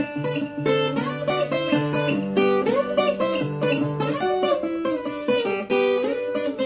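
Viola caipira, the ten-string Brazilian folk guitar, fingerpicked: a quick run of plucked notes over low bass notes.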